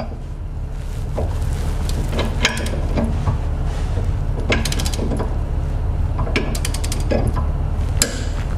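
Click-type torque wrench ratcheting in short bursts of clicks as a hitch-receiver bolt is tightened toward its torque setting, over a steady low hum.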